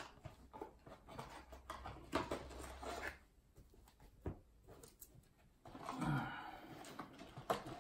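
Cardboard card box and a stack of trading cards being handled: light rustling, soft taps and scrapes as the flap is opened and the cards are slid out. A somewhat louder scrape comes about six seconds in, when the stack is set down on the table.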